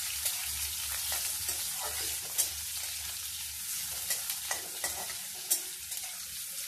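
Sliced onions sizzling in hot oil in a metal kadai, stirred with a metal spatula that scrapes and clicks against the pan every second or so.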